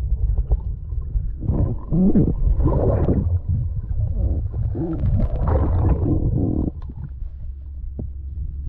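Muffled underwater sound through a camera's waterproof housing: a steady low rumble of moving water, with a louder rushing stretch from about a second and a half in until nearly seven seconds.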